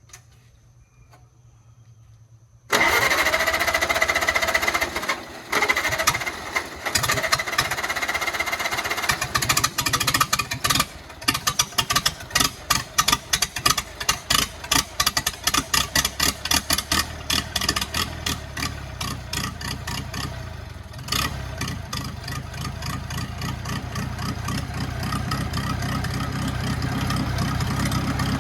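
1953 Farmall Super C's four-cylinder engine on its first start after a rebuild. The starter cranks it with a whine for about six seconds, then the engine catches and runs unevenly with sharp, ragged firing, settling into a steadier idle about twenty seconds in.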